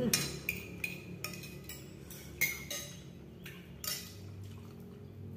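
Metal spoon clinking and scraping against a ceramic bowl during eating: a dozen or so light clinks, with a louder one about two and a half seconds in and another just before four seconds.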